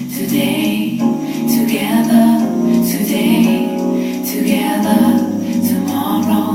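Music with female voices singing long held notes in a choir-like blend.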